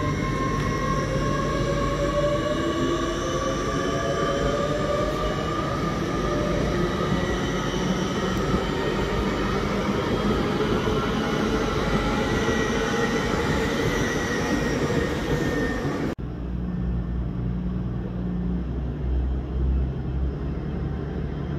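GWR Hitachi Intercity Express train moving slowly along the platform: wheel and rail noise with a whine from the traction gear that rises slowly in pitch as it gathers speed. About three-quarters of the way through the sound cuts off abruptly to a quieter, low hum and rumble from another train approaching.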